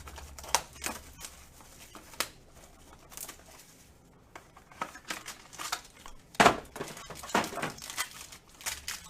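Packaging crinkling and tearing as a sealed trading card box is opened, in a run of scattered crackles and clicks; the loudest rip comes about six and a half seconds in.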